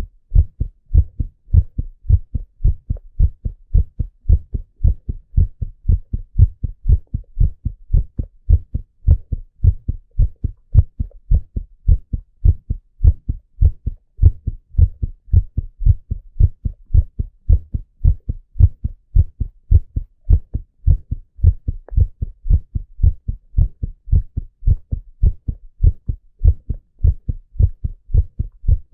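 A man's heartbeat heard through a stethoscope: steady, regular low thumps repeating evenly, with nothing else over them.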